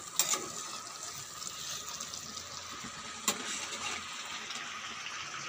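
Watery curry simmering in a pan over a gas burner, a steady hiss, while a metal spatula stirs it and knocks against the pan twice, just after the start and about three seconds in.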